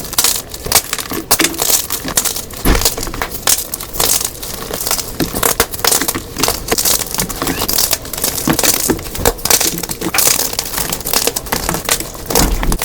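Blocks of dyed gym chalk being crushed, a dense, irregular run of dry crunches and cracks.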